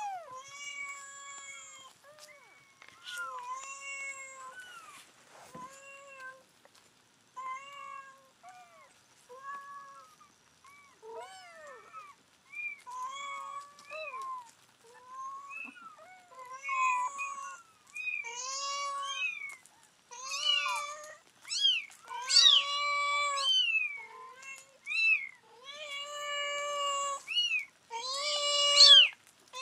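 Several nine-day-old kittens mewing over and over: short, high, pitched cries that bend up and down, coming more often and louder and overlapping in the second half.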